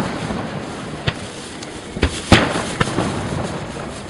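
Fireworks going off: a handful of sharp bangs from shells launching and bursting, the loudest about two and a half seconds in, with a steady noisy background between them.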